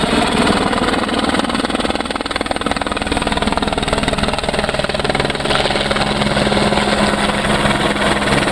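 Aérospatiale AS 350 Ecureuil helicopter flying low overhead: a loud, steady beat from its three-blade main rotor, along with its single turboshaft engine running.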